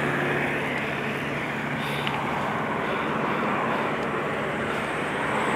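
Steady road-traffic noise beside a highway with a low, even engine hum, heard from a moving bicycle.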